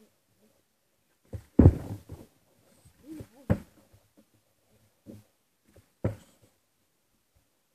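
A plastic milk bottle being flipped and landing with hollow plastic thumps and knocks: a loud double thump about a second and a half in, then smaller knocks a couple of seconds apart.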